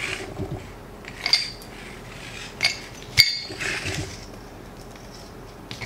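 Black iron pipe fittings and a steel pipe wrench clinking as they are handled and set down on the workbench: a few sharp, ringing metal clinks, about one, two and a half and three seconds in, the last the loudest.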